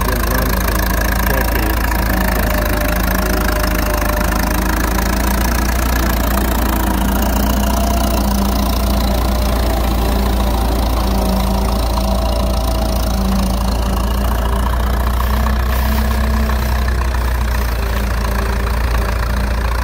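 1935 Minneapolis-Moline Twin City FTA tractor engine running steadily under load, pulling a three-bottom plow.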